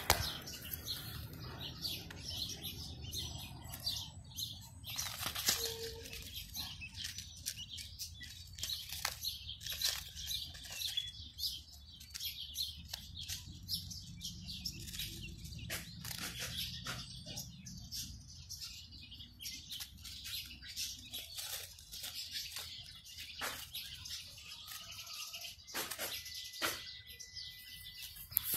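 Quail chicks peeping in many short, high chirps, thickest in the first half. Scattered light clicks and taps run throughout.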